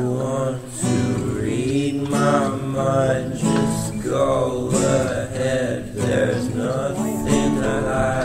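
Background music: a song led by plucked acoustic guitar.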